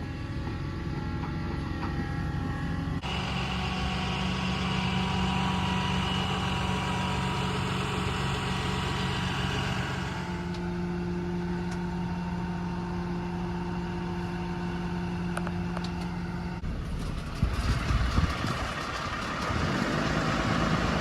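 A motor vehicle's engine running steadily, heard across several short clips that change abruptly, with knocks and rustling near the end.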